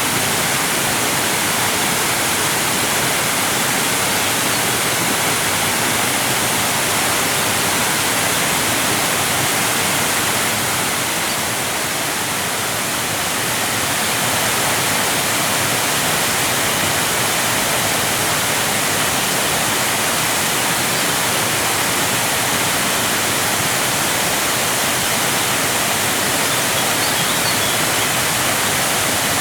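Waterfall: water cascading and crashing in a steady, dense rush, with a brief slight dip in level about halfway through.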